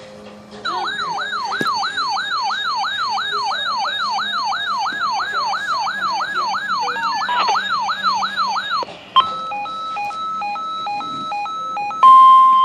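An electronic siren wailing quickly up and down, about three sweeps a second, for about eight seconds. It gives way to a run of alternating beeping tones. Near the end a loud steady emergency-alert warning tone starts.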